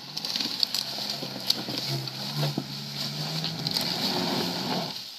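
Suzuki Sidekick's engine running steadily as the 4x4 crawls through leaf litter, with crackles of leaves and sticks under the tyres. The engine fades about five seconds in as the vehicle moves away.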